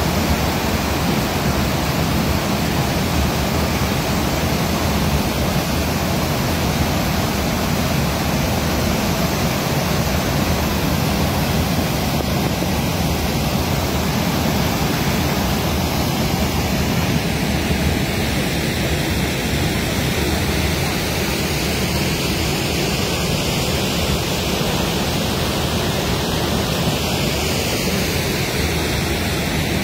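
Floodwater in a swollen river rushing past: a loud, steady rush of fast water that does not let up.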